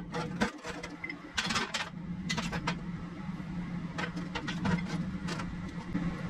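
Square steel bars and a steel pipe clinking, knocking and sliding as they are set down and positioned on a steel welding table, in several short clusters of sharp metallic taps over a steady low hum.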